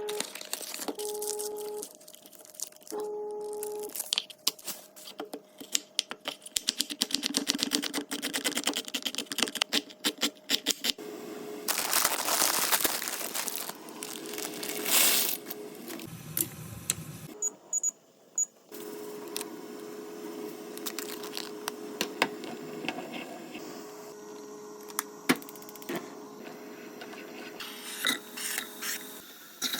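Kitchen handling sounds while preparing spaghetti: packaging rustling and tearing, with many sharp clicks and knocks of utensils and cookware. A faint steady hum stops and starts underneath.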